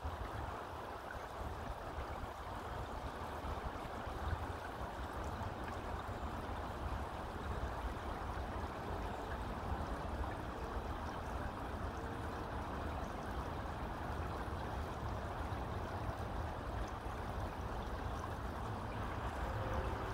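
River current flowing over and around rocks: a steady, low rushing with a deep rumble underneath.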